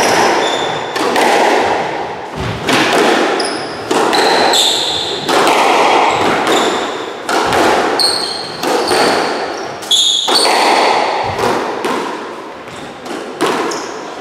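Squash rally: the ball cracks off rackets and walls about once a second, each hit echoing in the enclosed court. Rubber-soled shoes squeak briefly on the wooden floor between shots.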